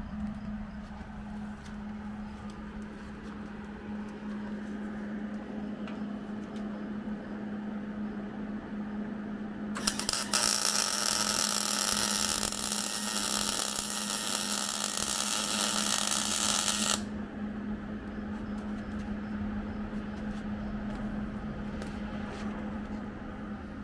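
MIG welder's arc crackling and hissing in one continuous bead of about seven seconds, starting about ten seconds in and cutting off sharply. A steady low hum sits under it.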